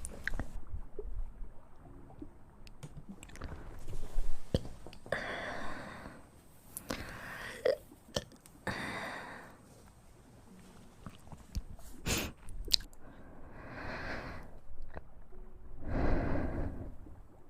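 A young woman burping about five times, each burp a second or so long, with sharp mouth clicks between them.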